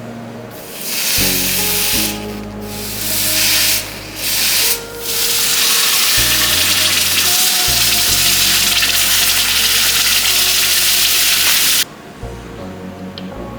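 Red-hot iron balls sizzling on ice: a loud steam hiss in a few short bursts, then one long stretch that cuts off suddenly near the end, over background music.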